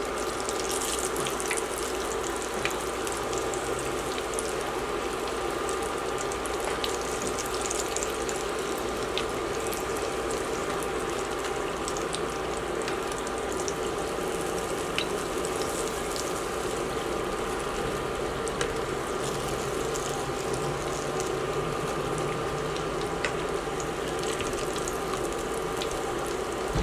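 Breaded tilapia fillets deep-frying in oil in a cast-iron skillet: a steady sizzle with scattered small pops and ticks, over a faint steady hum.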